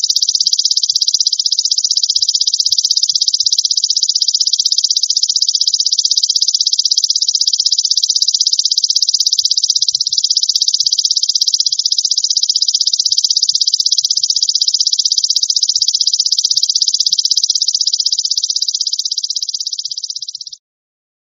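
Belalang emas (golden grasshopper) calling: a continuous, very fast-pulsed, high-pitched buzz that holds steady and stops abruptly near the end.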